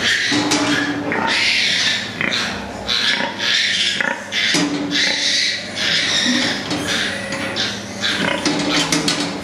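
Pigs in farrowing crates grunting and squealing continuously, with frequent sharp knocks, thickest near the end.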